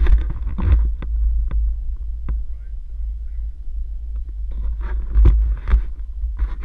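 Wind buffeting the microphone of a camera: a steady low rumble that swells in louder gusts, with a few sharp clicks and knocks in between.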